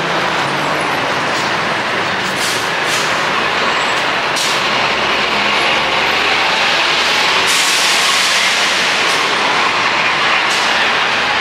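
Loud, steady noise of a moving vehicle, with a few short, sharp hisses.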